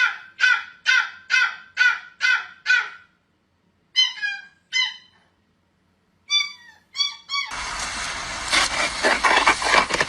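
A bird calling: a run of about seven harsh calls, each falling in pitch, about two a second, then shorter groups of two and three after brief pauses. About 7.5 seconds in, a loud, steady rushing noise takes over.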